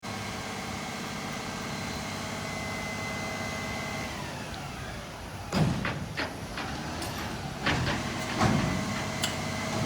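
A crane truck's engine running steadily, its note dropping a little about four seconds in and rising again near the end, with a few knocks and clanks in the second half.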